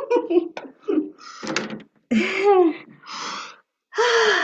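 Women's voices over a video call, exclaiming, laughing and gasping for breath after dancing. They come in short bursts with sudden silences between.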